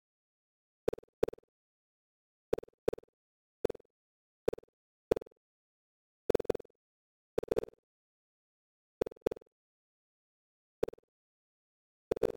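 Synthesized bounce sounds from software-animated boxes in a 5.1 surround test: about fifteen short blips at irregular intervals, some in quick pairs, each a sharp click with a brief mid-pitched tone, separated by dead silence.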